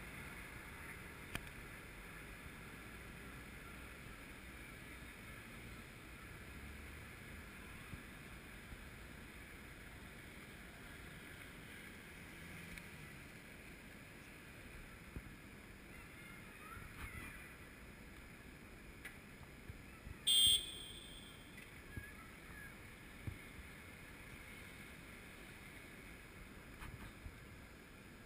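Faint city street ambience: a steady low hiss of distant traffic with a few small ticks, and one brief, high-pitched sound about twenty seconds in.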